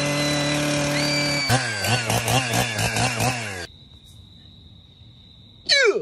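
Chainsaw running at a steady pitch while it is pushed into a pumpkin. About a second and a half in, its pitch starts wavering up and down about four times a second, and it cuts off abruptly a little over halfway through. Near the end a short loud sound falls steeply in pitch.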